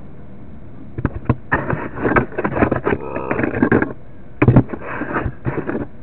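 Sewer inspection camera head and push cable knocking and scraping inside a drain pipe, in two bursts of clatter: one starting about a second in, the other just past four seconds.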